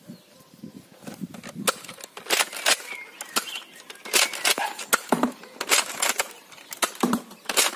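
Irregular sharp clicks and knocks of hard plastic parts of a Nerf Elite Retaliator blaster being handled on a table.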